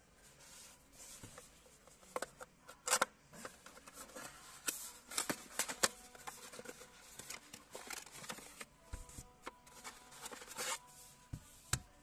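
Cardboard box and paper packaging being handled and opened: a busy string of clicks, scrapes and paper rustles.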